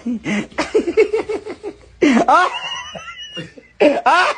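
Laughter: a quick run of short ha-ha pulses, then a high-pitched squealing laugh about two seconds in, trailing off in a thin wheeze.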